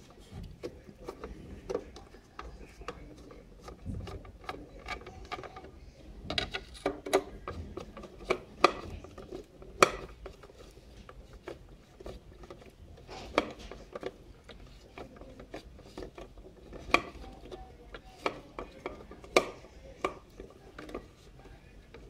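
Screwdriver working the screws of a Philips Pelican FC6050 handheld vacuum's plastic base: irregular clicks, scrapes and knocks of metal on hard plastic, with a few sharper knocks near the middle.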